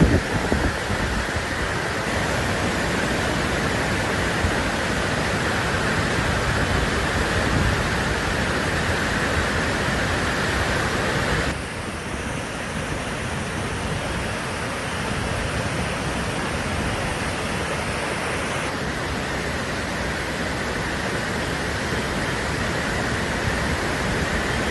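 Steady rush of water from heavy rain and running water. The sound drops a little and turns duller abruptly about halfway through, then changes again about three-quarters of the way in.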